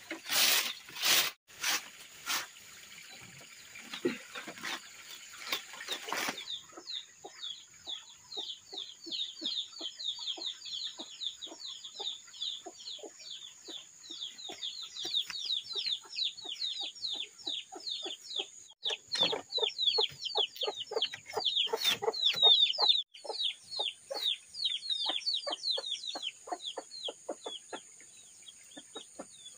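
A straw broom sweeping a split-bamboo floor in broad strokes. About six seconds in, this gives way to a dense, rapid run of high peeping calls from chickens, several a second, over a steady high whine in the background.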